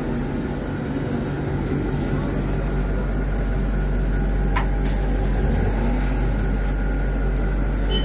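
Busy fast-food stall ambience: a steady low mechanical rumble and hum that gets heavier after about two seconds, with indistinct voices underneath.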